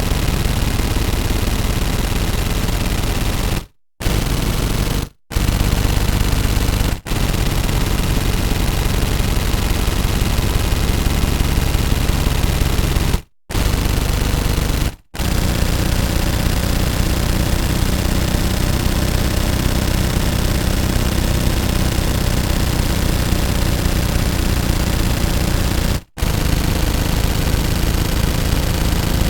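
Automatic gun firing long, rapid, continuous bursts, broken by six brief pauses of under a second each.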